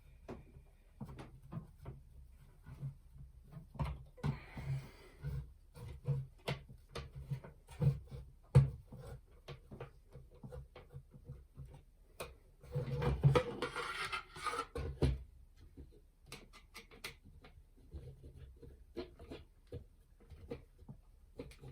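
Small screws being driven by hand into plastic model-kit parts, with repeated light clicks and taps of plastic and metal. Two longer rasping stretches come about four seconds in and about thirteen seconds in, the second the louder.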